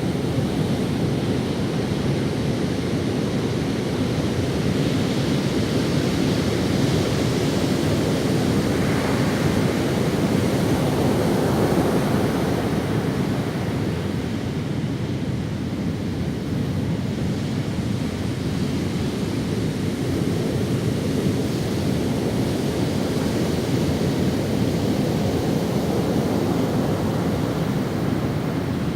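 Ocean waves breaking and washing up on a sandy beach: a continuous rushing that swells and eases slowly, with a stronger wash about a third of the way in.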